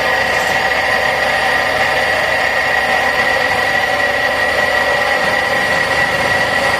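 A machine running steadily: a constant high whine over a steady mechanical noise.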